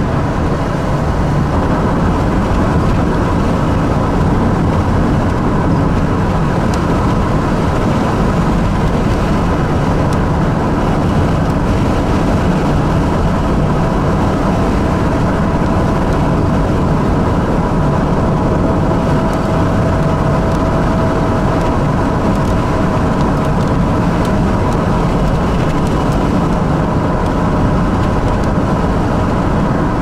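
Steady road and engine noise inside a moving car's cabin, with a faint steady whine.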